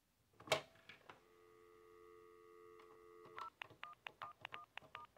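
An AT&T touch-tone desk phone's handset lifted off the cradle with a click, then a steady dial tone for about two seconds, cut off by a quick run of about ten short touch-tone key beeps as the number is keyed in.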